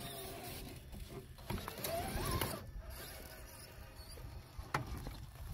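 Electric motor and gear drivetrain of an Axial SCX6 RC rock crawler whining faintly as it creeps over rock. The whine rises in pitch briefly about two seconds in, and there are a few light clicks.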